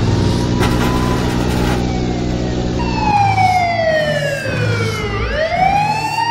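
Police siren wailing over a steady car engine drone. The siren is faint at first, then swells, falls slowly in pitch and rises back up near the end.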